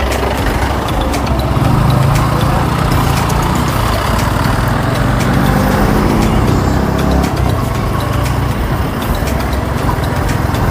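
Yamaha R15 motorcycle's single-cylinder engine running steadily under way, with road and wind noise.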